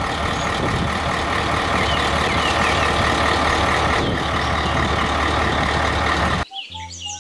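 Heavy three-axle tipper truck's diesel engine running steadily, a loud, even drone; it cuts off suddenly near the end.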